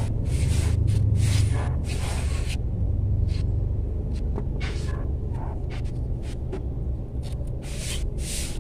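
Kitchen knife slicing through chayote onto a plastic cutting board: short irregular cuts about one every half second to a second, over a steady low hum.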